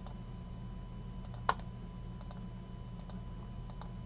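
Scattered computer mouse clicks and keyboard taps, with one louder click about a second and a half in, over a steady low electrical hum.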